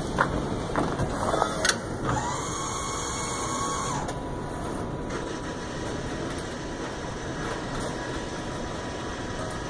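Schwan/AE AFD-280E automatic french fry dispenser running its exercise cycle: a few clicks and knocks from its moving parts, then a motor whine for about two seconds that settles into a fainter steady hum.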